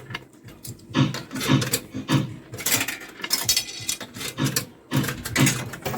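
Fruit machine noise in an amusement arcade: irregular mechanical clicking and clattering mixed with pitched electronic tones, with a brighter hissing patch in the middle.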